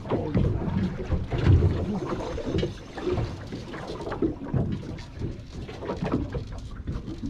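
Small boat on open water, with wind on the microphone and a run of irregular knocks and bumps, the loudest about a second and a half in.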